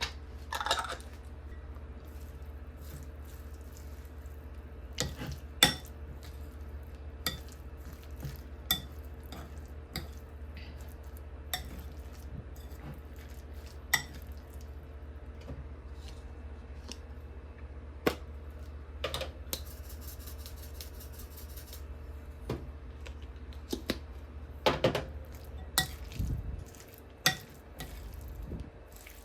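Kitchen utensils and dishes clinking and knocking now and then, scattered single clicks with a busier cluster near the end, over a steady low hum.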